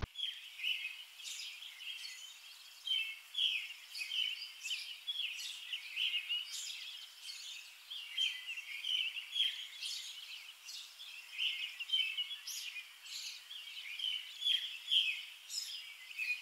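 Small birds chirping, a steady stream of short high calls overlapping one another.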